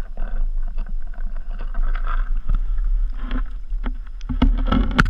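Water moving and knocking against a submerged GoPro's waterproof housing as it is moved on a pole in an ice-fishing hole: a steady low rumble with scattered clicks and knocks, getting louder and splashier near the end as the camera nears the surface.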